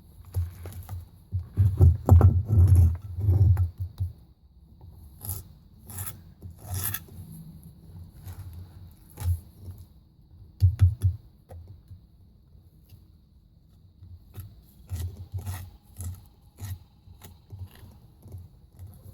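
Wet refractory cement being rubbed and scraped onto a pot as it is rendered, in irregular bouts that are loudest in the first few seconds, with scattered sharp clicks.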